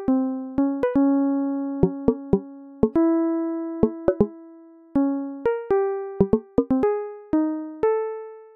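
Background music: a keyboard plays a slow melody of single notes, each struck sharply and ringing away, now and then two in quick succession.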